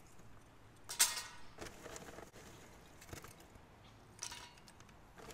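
Lumps of charcoal dropped into a Firebox folding metal camp stove, clattering and clinking against the metal in a few separate drops, the loudest about a second in.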